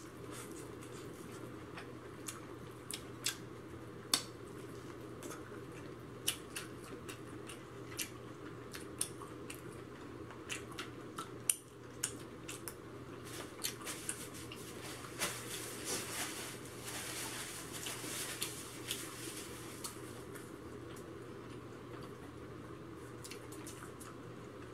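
Eating sounds: biting and chewing corn on the cob, with many scattered short sharp clicks over a steady faint hum.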